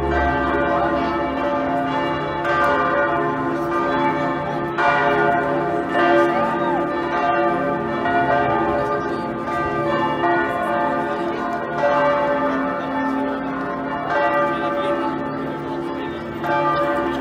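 Church bells ringing on and on, fresh strikes every second or two, their tones hanging and overlapping. Faint crowd chatter underneath.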